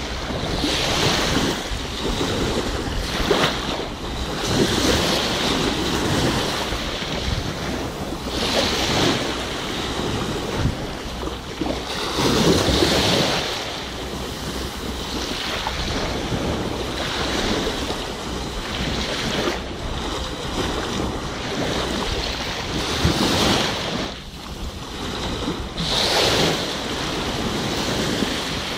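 Small waves washing in at the shoreline, swelling every few seconds, with wind rumbling on the microphone.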